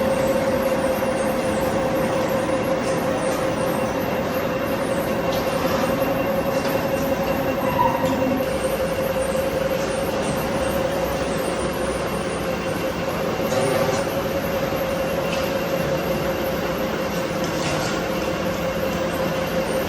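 Machine-shop machinery running steadily: a constant mechanical whine over a dense noise, with a few light clicks.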